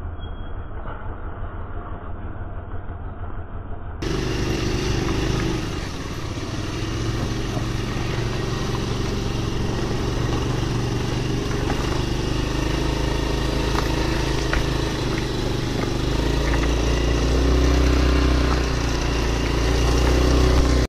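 Car engine running as it creeps over a rutted dirt road, mixed with a motorcycle engine. The sound gets abruptly fuller and louder about four seconds in, and the low engine rumble is heaviest near the end.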